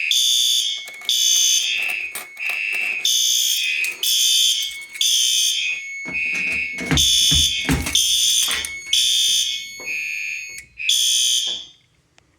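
Fire alarm horns sounding together in a repeating pattern of two alternating high tones, set off by a magnet test of a heat detector. A few low thumps come in the middle, and the alarm cuts off abruptly about a second before the end.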